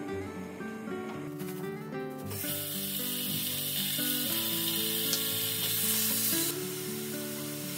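Thin-sliced pork sizzling in hot oil in a frying pan, starting suddenly about two seconds in as the meat goes in and easing off near the end while it is stir-fried with chopsticks. Background music plays throughout.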